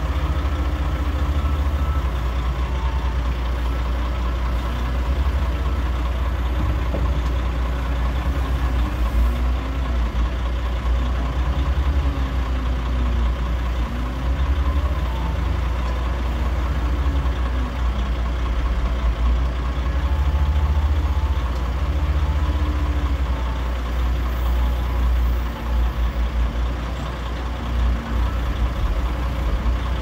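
Heavy diesel engines of a wheel loader and a dump truck running with a steady low rumble. One engine revs up and down again and again as snow is scooped and dumped into the truck.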